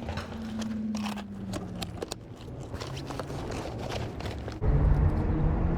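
Water splashing and knocks, typical of wading over a rocky riverbed, with a sudden low rumble starting near the end that is the loudest part.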